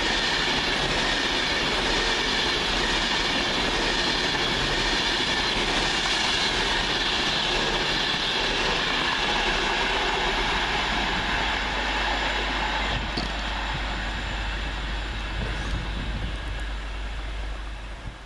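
Class 390 Pendolino electric train passing through the station: a steady rush of wheels on rail with high whining tones that fall slightly in pitch, fading away over the last several seconds.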